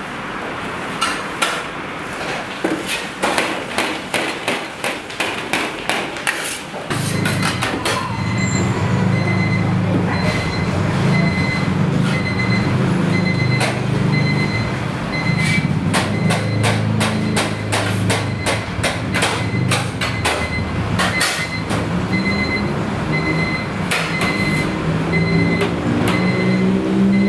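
Rapid repeated knocks, like a knife or cleaver chopping on a board, at about two to three a second. About seven seconds in, a loud, steady, low engine drone joins them and carries on to the end, with sparser knocks over it.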